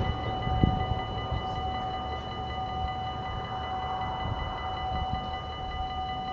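Dutch automatic level crossing's electronic warning bell ringing steadily with the barriers down, a continuous multi-tone ringing, over a low rumble, with a short low knock about half a second in.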